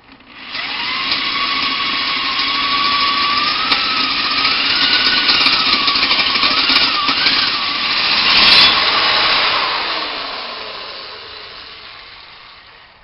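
Electric drill spinning up and boring a hole with a larger bit after a pilot hole, its whine wavering in pitch as the bit loads up, louder for a moment about eight seconds in, then spinning down and fading out near the end.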